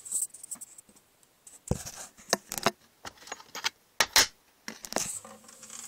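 A mobile phone being handled and set in place: irregular scrapes, rubs and sharp knocks of hands and the phone against its microphone.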